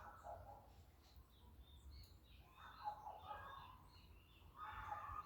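Birds chirping and calling faintly in short, scattered calls, some high and thin, others lower, over a low background hiss.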